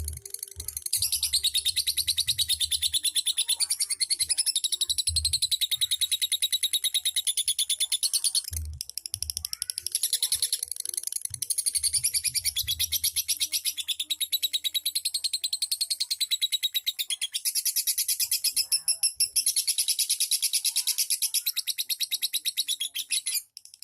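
Lovebird singing in long, rapid, high-pitched rattling trills, the near-continuous chatter that lovebird keepers call ngekek, with short breaks twice and a stop near the end.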